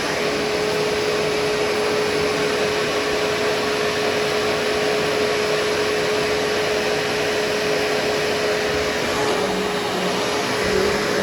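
Vacuum cleaner running steadily over carpet: a continuous rush of air with a steady motor hum.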